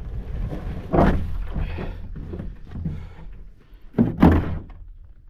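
Canoe hull thunking against the rocky shore as the bow noses in to land. There is a heavy knock about a second in, lighter knocks and rubbing after it, and a louder double knock just after four seconds.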